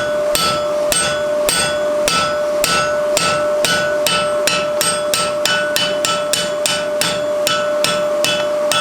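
Blacksmith's hammer striking a hot mild steel bar on the anvil in a steady rhythm of about three blows a second, tapering the bar and cutting it off. The anvil rings on between blows.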